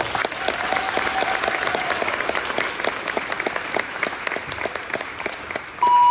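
An audience applauding, a dense patter of many hands clapping. Near the end a loud steady beep-like tone cuts in over it.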